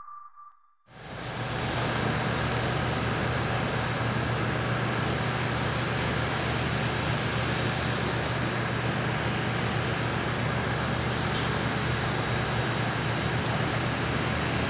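Bombardier CS300 airliner's Pratt & Whitney PW1500G geared turbofan engines running steadily on final approach and landing, fading in about a second in and holding an even level.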